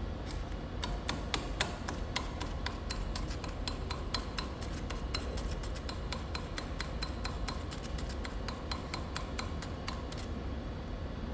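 A rapid, uneven run of sharp metallic ticks, a few a second, each with a slight ring, over a low steady hum.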